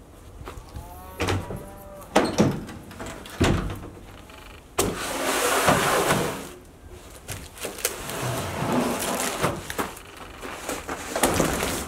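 Pickup truck's camper-shell rear hatch being unlatched and lifted, with a brief squeak and a few clicks, and the tailgate dropping open with a heavy thump. Then a large cardboard box scrapes as it is dragged out across the truck bed and lifted out.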